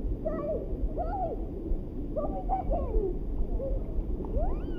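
Muffled human voices, short sounds that rise and fall in pitch, from people in a swimming pool, over a steady low rumble of water and wind on the microphone at the water's surface.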